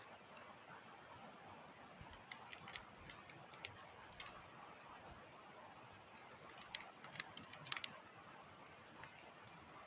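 Near silence with a scattering of faint, sharp little clicks, a few at a time, clustered in two groups.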